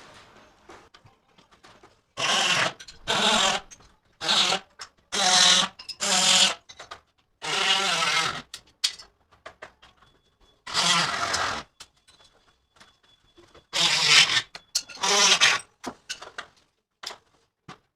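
Power drill driving screws in about nine short bursts, each under a second, with irregular pauses between them.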